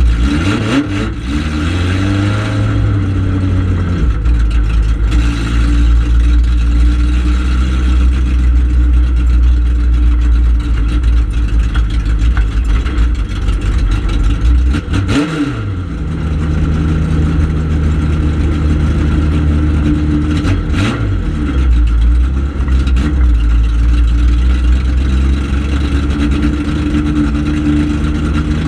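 Four-cylinder ministock dirt-track race car engine running hard, heard from inside the cockpit. Its note drops and climbs again sharply a few times, about a second in, around the middle and again a few seconds later, as the throttle is lifted and reapplied through the turns.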